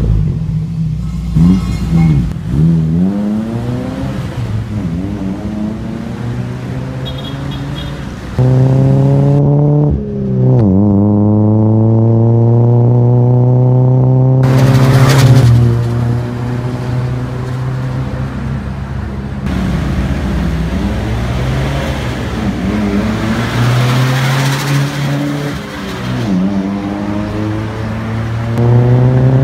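1992 Toyota Tamaraw's engine heard through a new aftermarket full exhaust with a polished muffler tip, revved again and again so that the note rises and falls with each blip. About ten seconds in, one rev climbs and is held high for several seconds before it drops back.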